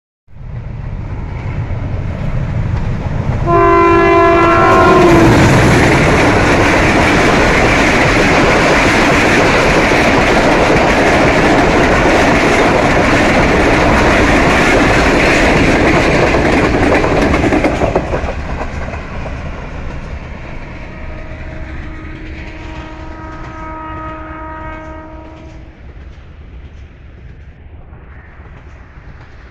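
Pakistan Railways passenger train passing close by. A horn blast sounds about three and a half seconds in, followed by loud rumble and clickety-clack of the coaches going past for about fourteen seconds. The noise then fades as the train moves away, with a second, fainter horn blast about twenty-one seconds in.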